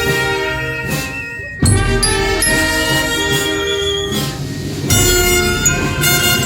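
Brass band playing a Guatemalan processional funeral march: full sustained brass chords. There is a brief break about a second and a half in, then the band comes back in loudly, with another loud entry near five seconds.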